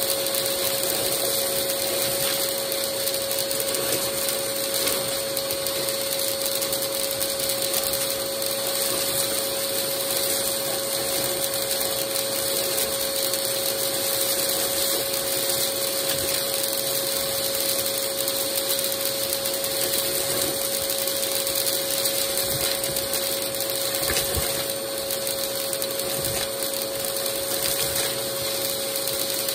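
Vacmaster vacuum running steadily with a constant whine. Its wand is sucking up beads, sequins and buttons, which crunch and rattle as they go up the tube.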